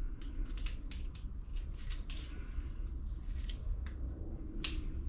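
Irregular small metallic clicks and clinks of hand tools at work in a stripped head-bolt hole in the engine block, several a second, over a steady low hum.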